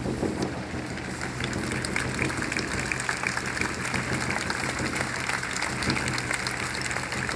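Large crowd applauding, a dense patter of clapping that grows fuller about a second and a half in.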